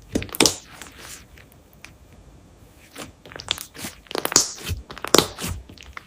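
Clear slime with softened clay worked into it being stretched and folded by hand, giving irregular sharp clicks and pops, a few early on, sparse in the middle and coming thicker from about three seconds in.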